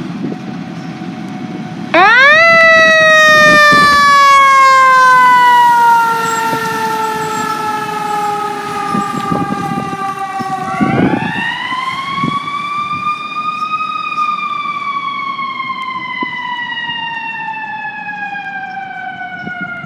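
Fire truck siren wailing. It starts suddenly about two seconds in, loudest at first, sweeps up and then slowly falls. About halfway through it winds up again and slowly falls once more, over a low rumble.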